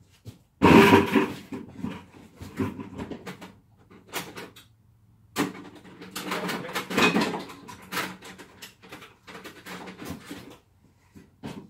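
Irregular clattering, clicking and knocking of hand tools and small parts being handled, with two louder clatters, one under a second in and one about five seconds in.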